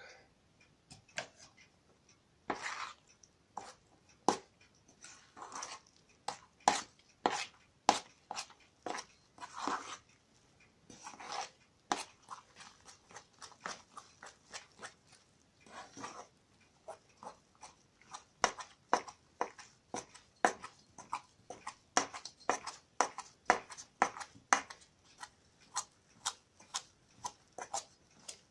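Metal spoon stirring stiff curd-cheese and flour dough in an enamel bowl: repeated clacks of the spoon against the bowl, about two a second later on, with a few longer scrapes in the first half.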